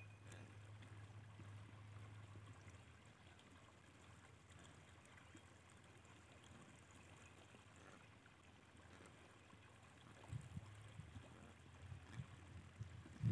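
Near silence: faint outdoor background with a low hum that fades out about three seconds in, and a few faint low knocks in the last few seconds.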